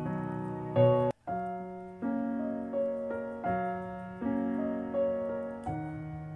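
Background piano music: slow chords, each struck and left to fade, with a sudden brief drop-out just after a second in.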